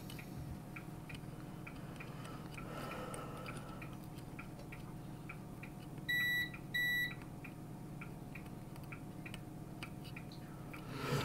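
Multimeter continuity tester beeping twice in quick succession, two short high beeps about six seconds in, as the test probes bridge two points on a small circuit board that is being checked for short circuits.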